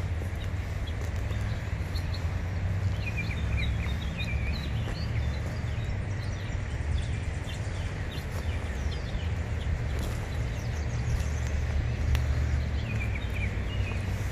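Steady low rumble of wind buffeting the microphone, with birds chirping in short runs about three seconds in and again near the end.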